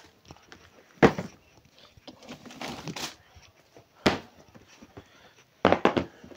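Cardboard suit boxes being handled and set down on a shop counter. There is a sharp knock about a second in, some sliding and shuffling, another knock about four seconds in, and a quick run of knocks near the end.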